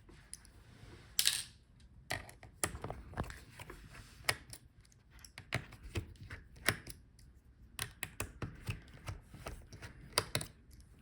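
Irregular small clicks and taps of a screwdriver and metal screws as the laptop's hinge screws are taken out, with a brief scraping rustle about a second in.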